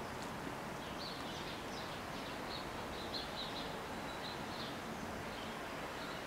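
Small birds chirping in quick, irregular short high notes over a steady background hiss of outdoor noise.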